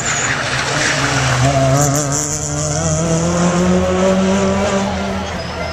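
Cars drifting: engines held at high revs, the pitch climbing slowly through the middle, over the squeal of sliding tyres.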